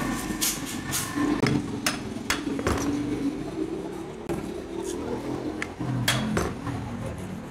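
Sharp metallic clicks and knocks with scraping and handling noise as a screwdriver is worked against the metal parts of a refrigerator compressor's motor stator.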